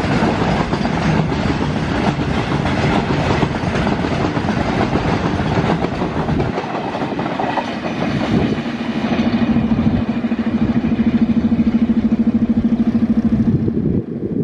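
Goods train of covered wagons rolling past at speed, its wheels clattering over the rail joints. The rolling noise thins out after about six seconds as the brake van at the tail goes by. A steady hum with a fast flutter then takes over.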